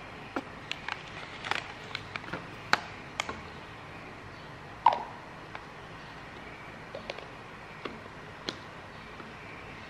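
Scattered clicks, taps and knocks of a plastic formula-tin lid and a milk bottle being handled on a wooden table. The loudest is a sharp knock about five seconds in, with a brief ring after it.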